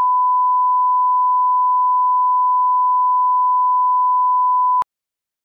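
Steady line-up test tone on a video leader: a single pure, unchanging beep that cuts off suddenly near the end.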